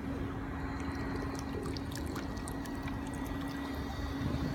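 Pond water splashing and dripping around a small model boat's hull as it is set in and lifted out at the water's edge, with scattered small drips. A steady low hum runs underneath.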